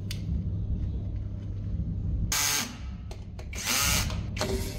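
Cordless drill-driver running in short bursts, driving screws into the metal battery cabinet frame; the bursts start about halfway through and come roughly a second apart.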